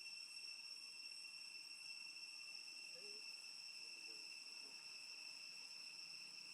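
Faint, steady, high-pitched insect drone that holds one unbroken tone, with a few faint short sounds about halfway through.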